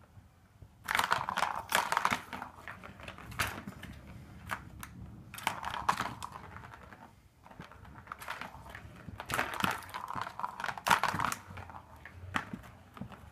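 Plastic ball rolling and rattling around the plastic track of a Super Roller Circuit cat toy as a cat bats at it. The clatter starts about a second in and comes in several bursts with brief lulls between them.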